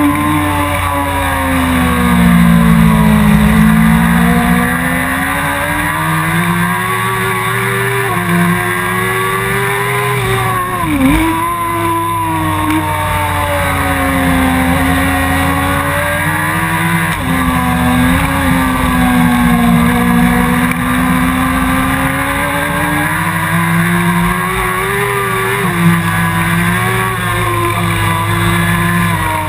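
Suzuki GSX-R 1000 inline-four sportbike engine at full race pace. Its note climbs and falls continuously through the lap, with several sudden drops and quick recoveries where it shifts gears and brakes for corners.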